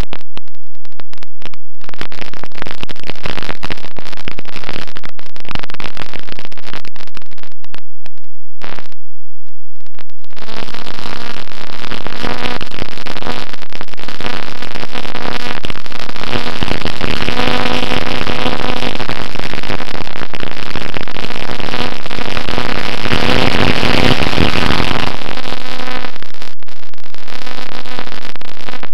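Electric motor and propeller of a Bixler model plane heard through its onboard camera, buried in loud rough wind noise that cuts out briefly several times. About ten seconds in a steady propeller drone with a clear pitch rises out of the noise and holds as the plane climbs.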